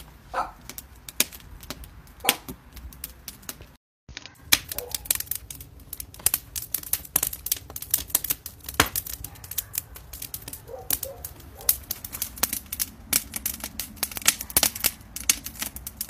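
Cedarwood fire crackling and popping, a dense run of sharp irregular snaps. The sound cuts out briefly about four seconds in.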